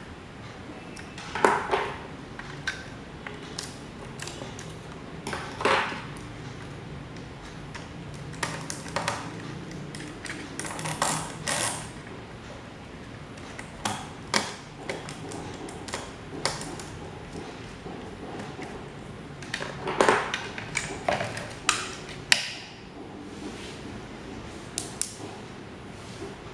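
Metal parts of an old electric desk fan being handled: irregular clinks, taps and knocks, some ringing briefly, with a few short scraping sounds around the middle.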